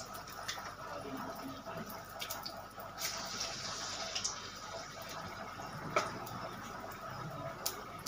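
Battered jackfruit fritters deep-frying in a wok of hot oil: a steady sizzle with scattered crackles. A few sharp clicks come from the metal utensil against the wok.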